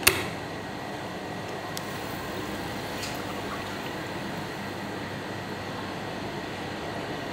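A sharp click or knock right at the start, then a steady, even hum of machine or room noise.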